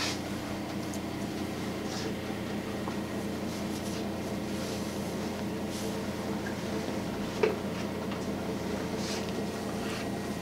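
Electric hand massager buzzing steadily against the scalp, with one short knock about seven seconds in.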